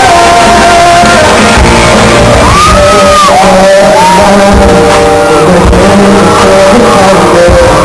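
A live pop ballad played through a loud PA, with a male singer and band, recorded from within the crowd at a level close to overload. Fans shout and scream over the music.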